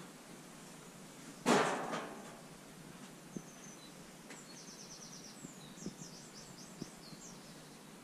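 A single loud thud about one and a half seconds in that fades over half a second, then a small songbird singing in short, high chirps and quick trills. A few faint knocks fall between the bird's phrases.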